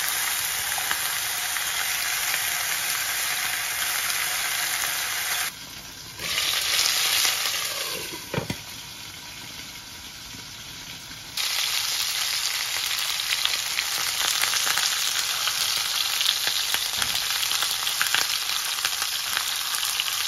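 Chicken pieces sizzling and spitting as they brown in their own rendered fat in a non-stick frying pan. The sizzle drops to a quieter, muffled hiss for a few seconds about halfway through, while the pan is under a glass lid, then comes back loud.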